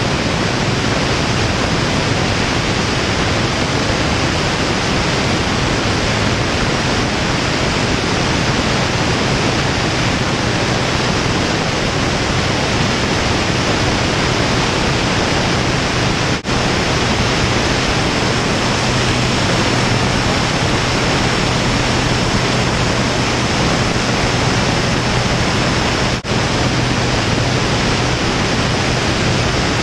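Loud steady rush of airflow over a wing-mounted camera in flight, with the low steady drone of the XtremeAir XA42's Lycoming 580 engine and propeller under it. The sound drops out for an instant twice, a little past halfway and again near the end.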